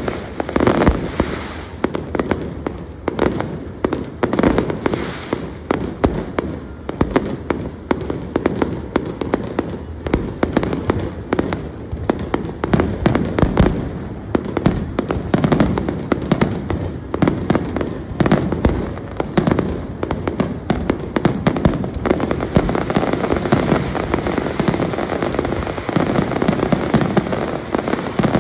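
Large fireworks display: a continuous, dense barrage of bangs and crackling bursts overlapping one another.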